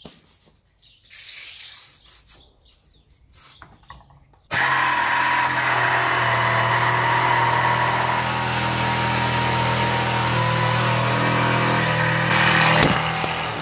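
Black & Decker jigsaw switched on about four and a half seconds in, then running steadily as it saws through a 25 mm thick wooden benchtop. It is struggling because it is fitted with a metal-cutting blade, the wrong type for thick wood. It begins to wind down near the end.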